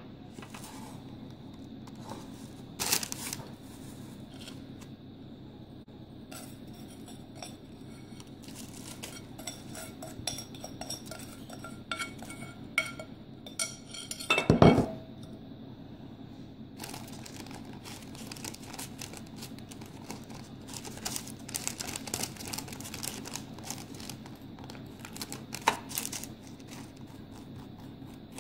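Kitchen handling sounds: a spoon and dishes clinking, with a sharp knock about halfway. Then a long run of dense crackly scraping as a spoon spreads roasted dry vermicelli over a parchment-lined baking tin.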